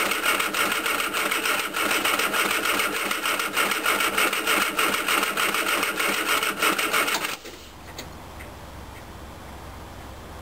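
The Mini's 1400cc MiniSport engine being cranked over by its starter motor in a steady rhythmic churn without catching, because the ignition is giving no spark. The cranking stops abruptly about seven seconds in.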